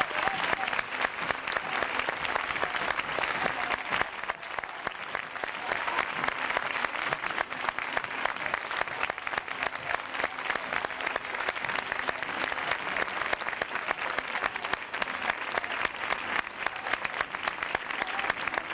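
Large crowd applauding, dense steady clapping throughout.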